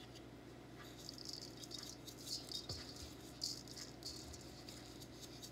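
Poppy seeds rattling in a small glass spice jar as it is shaken over chicken breasts in a metal bowl, in a series of short, faint bursts.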